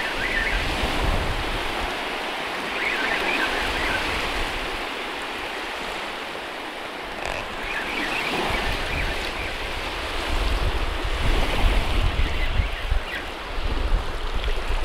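Wind buffeting the microphone over waves lapping at the shore of a large reservoir, with the gusts heavier in the second half.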